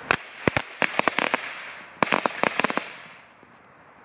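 Firecracker chain, lit from both ends, going off as a rapid string of sharp bangs, then a second rapid string about two seconds in, dying away about three seconds in.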